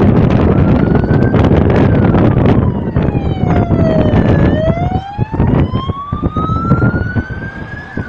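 Emergency vehicle siren in a slow wail, its pitch falling for a few seconds, then climbing steadily for nearly four seconds before it starts to fall again near the end. It rises over a loud low rumble with sharp crackles that eases after about three seconds.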